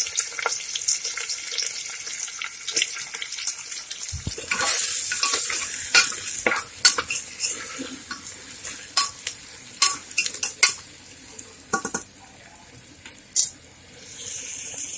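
Sliced onions sizzling in hot oil in a pressure cooker while a metal ladle stirs them, scraping and clinking against the pot many times. About four seconds in, a knock is followed by a louder burst of sizzling.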